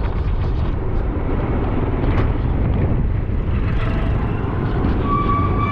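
Motorcycle riding noise: engine and road rumble with wind buffeting the microphone. A steady high tone comes in near the end.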